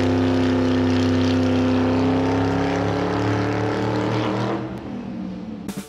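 Racing car engine running with a steady note whose pitch sinks slowly, fading out from about four and a half seconds in.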